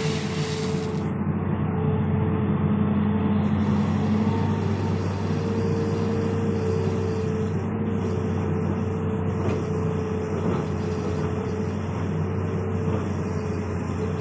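Hitachi hydraulic excavator's diesel engine running steadily, with a steady whine over its hum. Gravel pours from the bucket onto a pile in the first second.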